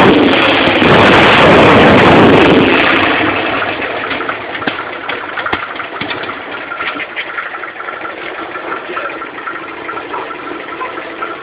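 Harley-Davidson Sportster 883's air-cooled V-twin engine running loudly for about the first three seconds, then dropping back to a quieter, steady idle.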